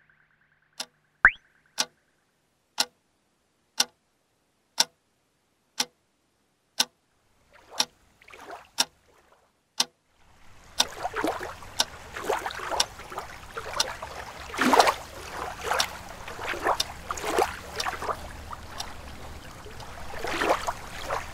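Sharp, evenly spaced ticks about once a second. About ten seconds in they give way to a dense crackling and hissing with louder swells and a low hum under it.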